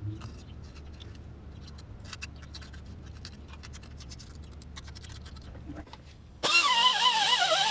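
Light scraping of old gasket silicone off the engine's water-pump mounting surface: a run of quick, faint scratches over a low steady hum. Near the end a much louder high-pitched sound, wavering up and down in pitch, starts suddenly.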